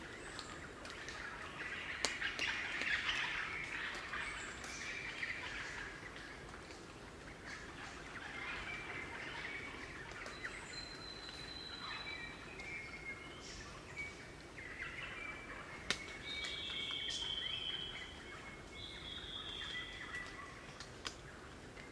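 A group of crimson rosellas calling: squeaky chattering for the first several seconds, then clear whistled song notes, some held level and one falling slightly, with a few sharp clicks between them.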